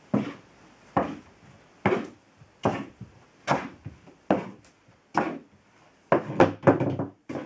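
Loose, well-worn wooden clogs knocking, about one sharp wooden knock a second, then a quick run of several knocks near the end.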